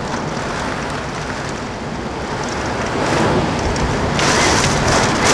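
Hurricane wind gusting with driving rain, heard through a window. The wind swells about three seconds in and surges louder and hissier just after four seconds.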